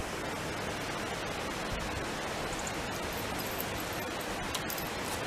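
Steady outdoor background hiss with no distinct sounds standing out.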